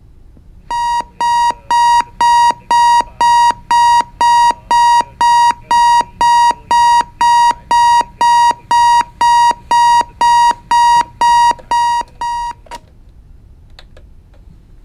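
Timex digital clock radio's alarm beeping: a rapid train of identical high electronic beeps, about two a second, that cuts off abruptly about two seconds before the end, followed by a couple of faint clicks.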